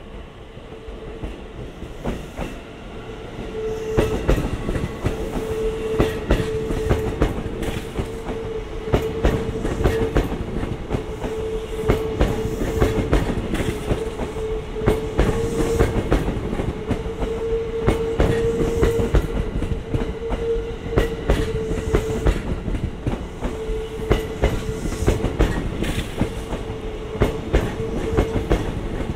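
A train drawing closer and then rolling past, its wheels clattering over the rail joints, with a steady whine underneath.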